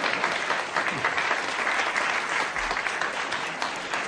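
A roomful of people applauding, many hands clapping in a dense, even patter.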